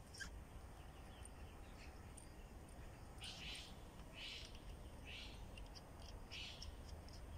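A bird calling in a string of short raspy calls, about one a second, over a faint low outdoor rumble.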